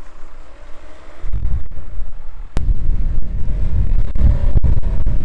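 Suzuki Jimny 1.3's petrol four-cylinder engine working under load as the small 4x4 pushes through deep snow, louder from about a second in, with wind noise on the microphone.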